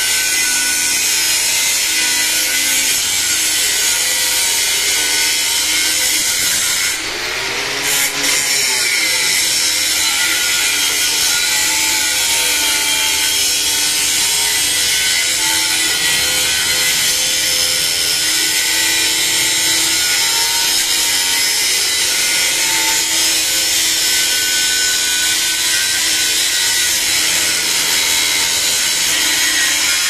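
Handheld angle grinder with an abrasive cut-off disc cutting through a bundle of steel reinforcing rods (rebar): a loud, continuous grinding screech of disc on metal. About seven seconds in it eases off for a moment, then bites again at full strength.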